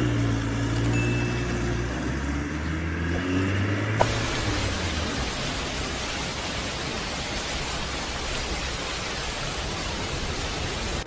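A motor runs with a steady low hum for about four seconds, then cuts suddenly to a steady, even hiss of noise.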